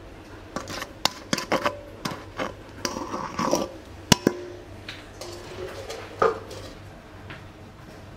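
Kitchenware being handled: a run of knocks and clinks of dishes and utensils, some leaving a short ringing tone, with the sharpest clink about four seconds in.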